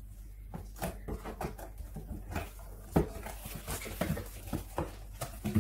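Cardboard box being opened and handled: irregular scrapes, rustles and light knocks of the lid and cardboard flaps, with one sharper knock about three seconds in.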